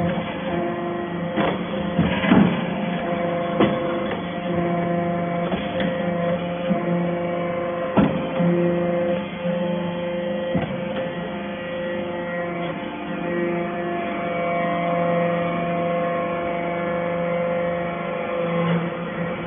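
Hydraulic scrap-metal baler running with a steady, even hum from its motor and pump, broken by a few sharp metal knocks in the first half.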